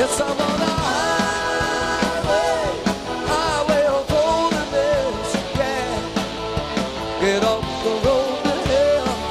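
Live rock band playing: a lead vocal sung over electric guitars, keyboards and a drum kit.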